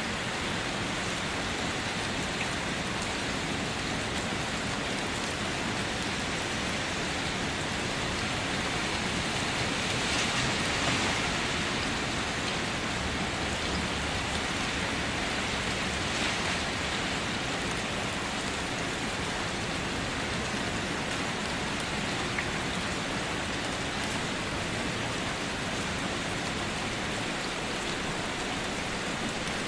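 Steady rain falling, a continuous even hiss of drops, swelling briefly a little louder about ten seconds in.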